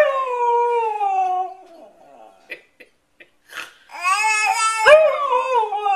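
A husky howling and "talking" in long, drawn-out calls that fall in pitch: one fading out about a second and a half in, then after a short quiet gap with a few faint short sounds, another starting about four seconds in, rising briefly and then falling.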